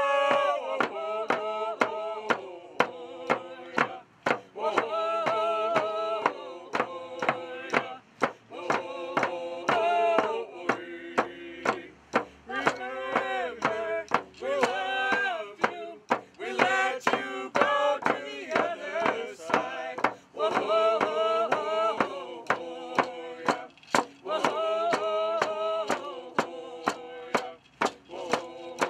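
A group of voices singing a Native American song together, with hide hand drums struck in a steady beat of about two strokes a second.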